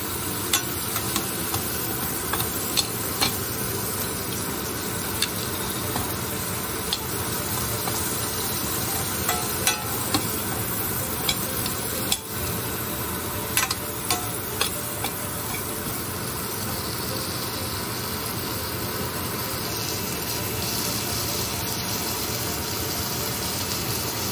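Carrot chunks sizzling as they brown in a hot stainless steel pan: a steady frying hiss, with scattered sharp clicks and pops that come often for the first fifteen seconds or so and thin out after that.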